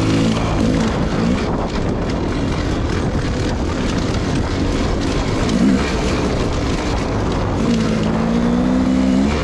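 Dirt bike engine running under throttle while riding, the revs changing, with a rise in revs near the end.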